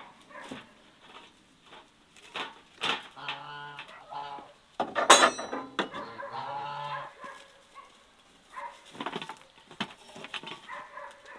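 Chickens calling: a short call a little after three seconds, then a long rooster crow from about five to seven seconds. Scattered light knocks and clatter run through it as chicken legs are handled on the smokehouse's metal hanging rack.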